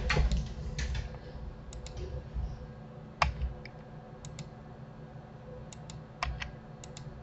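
Scattered single clicks of a computer keyboard and mouse, about a dozen, some in quick pairs, over a faint steady hum.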